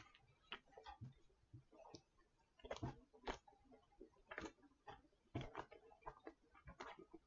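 A person chewing a mouthful of soft, moist sandwich: faint, irregular wet clicks and smacks of the mouth.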